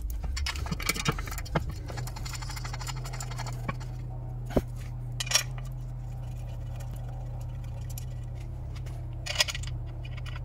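Cast aluminium sump of a Ford Zetec engine being handled and pushed up into place against the block: light metallic clinks and scrapes with a few sharp clicks, most of them in the first two seconds. A steady low hum runs underneath.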